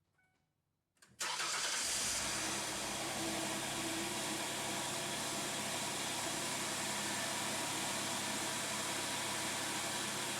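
2004 Ford Freestar's 3.9-litre V6 starting about a second in and settling into a steady idle, just after a couple of faint short chime tones. This is the first start after a lower intake manifold gasket replacement, run without coolant so the new gasket warms up and seals.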